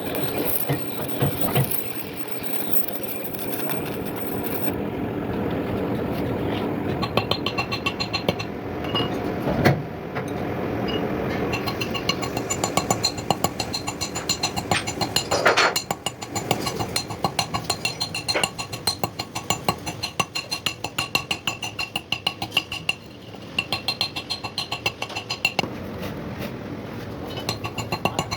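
A workshop machine running steadily, with a few sharp metal knocks and, from about halfway in, a fast regular metallic ticking with a high ring.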